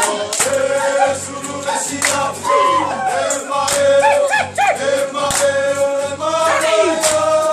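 Live Samoan song sung by a group of voices, with instrumental accompaniment and a steady beat, played for a siva dance.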